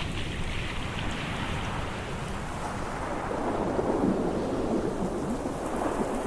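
Ocean surf: a steady wash of waves, with a wave breaking and rushing in louder about halfway through.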